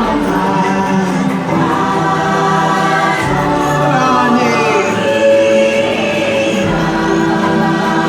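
Choir singing long, held notes over music, from the boat ride's soundtrack.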